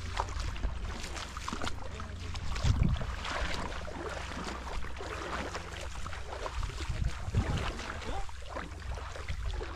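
Footsteps wading through shallow marsh water, irregular sloshing and splashing, over a steady low wind rumble on the microphone.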